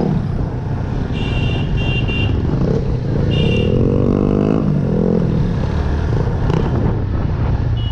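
Motorcycle engine running on the move, its pitch rising and falling once about four seconds in. Short high-pitched beeps sound a few times in the first half.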